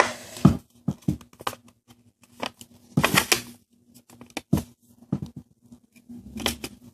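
A sheet of white paper being folded and creased by hand against a tabletop: a run of short rustles and crackles, with a longer rustle about three seconds in.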